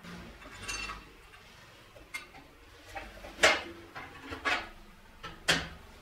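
Metal parts and tools being handled: a handful of separate sharp clinks and clanks, the loudest about three and a half and five and a half seconds in.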